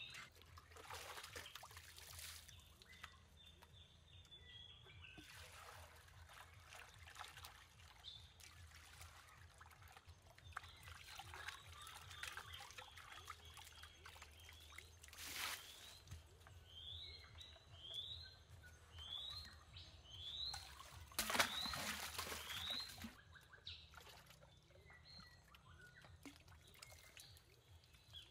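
Water trickling and pouring in irregular bursts. About two-thirds of the way through, a bird calls a quick run of short rising notes.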